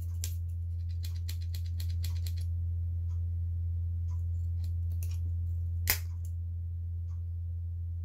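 Small metal clicks and snips from the spring-loaded scissors of a Victorinox Swiss Champ pocket knife being opened and worked. The clicks come in a quick cluster in the first couple of seconds, then scattered, with one sharper click near six seconds, over a steady low hum.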